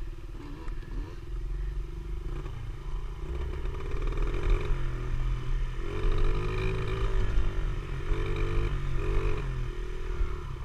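Dirt bike engine running close up while riding along a gravel track, its pitch rising and falling several times as the throttle is opened and eased off.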